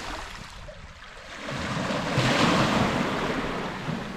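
Small sea waves washing over shoreline rocks and pebbles. One wave swells in from about a second and a half, peaks, then fades away.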